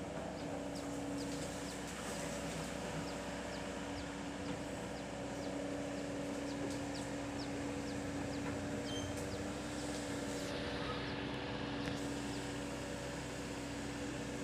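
Excavator's diesel engine running steadily, a constant even hum.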